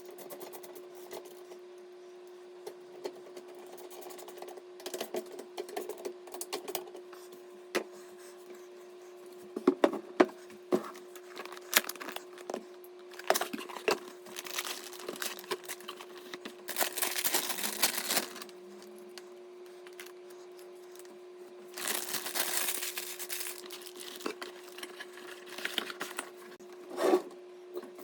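Hands working on PC hardware: scattered small clicks and knocks, with two bursts of crinkly rustling, the first about 17 seconds in and the second about 22 seconds in, over a steady hum.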